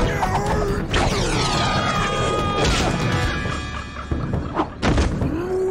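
Dramatic background score under cartoon fight sound effects: several heavy impacts, thuds and crashes of bodies being thrown and hitting, one about a second in and two close together near the end.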